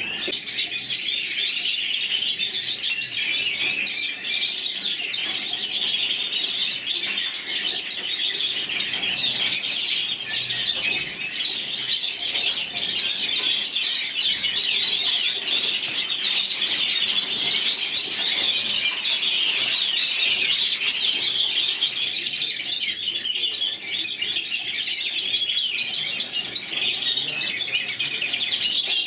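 White canaries singing: a steady, unbroken stream of fast warbles, chirps and trills.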